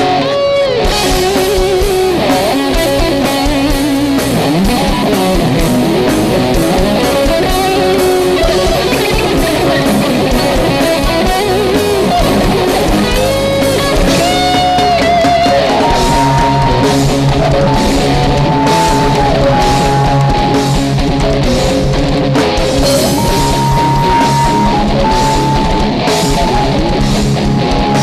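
Live rock band playing an instrumental passage: an electric guitar lead over a drum kit and keyboard. The lead wavers and bends in the first half, then holds longer high notes.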